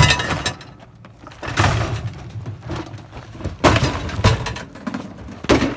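An old dishwasher being smashed apart: about five heavy blows, each followed by cracking and breaking of its panels and parts.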